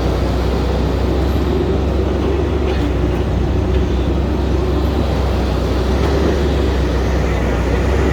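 Heavy haul truck's diesel engine running steadily, heard from inside the cab as a loud, even low drone.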